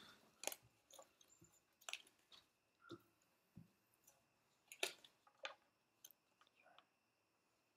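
Playing cards handled on a glass tabletop: scattered light taps and clicks as cards are gathered and set down, the sharpest about half a second in and just before five seconds.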